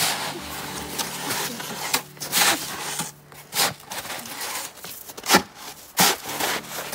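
Snow shovel scraping and scooping snow in a run of irregular strokes, the sharpest two coming about five and six seconds in.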